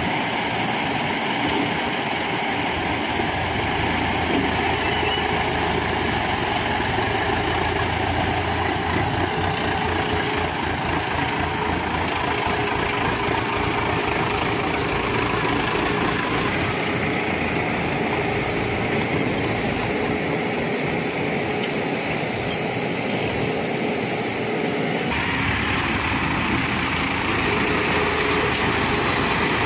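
Diesel engines of a backhoe loader and farm tractors running steadily. The engine sound changes abruptly near the end.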